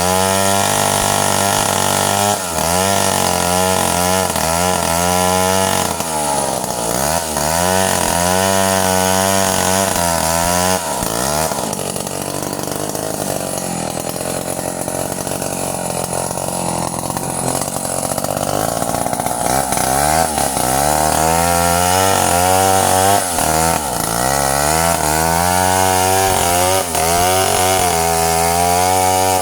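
Stihl two-stroke chainsaw running while cutting wood, its engine pitch rising and falling again and again under load. For a stretch in the middle it runs steadier and a little quieter before the pitch swings return.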